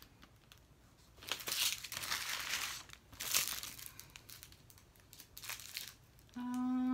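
Small plastic bags of diamond-painting drills crinkling as they are handled, in a few short bursts. A woman's voice comes in near the end.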